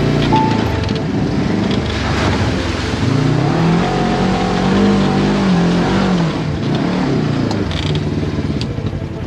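Polaris RZR 1000 side-by-side's engine heard from inside the cab, revving up about three seconds in, holding its revs, then dropping back toward a low steady run near the end as the vehicle slows.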